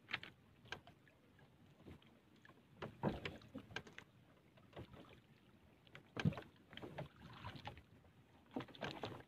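Faint, irregular knocks, clicks and splashes on a small wooden outrigger boat as a fishing handline is hauled in with a fish on it, louder in clusters about three, six and eight and a half seconds in.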